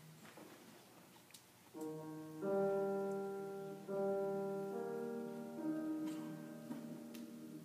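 Grand piano playing a slow introduction of held chords, starting about two seconds in after faint room noise. Each chord is struck and left to ring and fade before the next.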